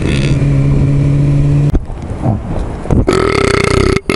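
A man belching inside a motorcycle helmet: one long, steady burp that is cut off abruptly about a second and a half in, then a second, shorter burp near the end, over the noise of the moving motorcycle.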